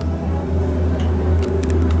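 Steady low hum and rumble inside a Disney Skyliner gondola cabin as it travels along its cable, with a few light ticks about one and a half seconds in.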